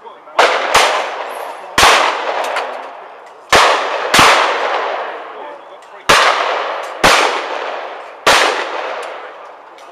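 Shotguns firing at a clay shoot: about eight shots, several in quick pairs under a second apart. Each sharp report trails off in a long echo.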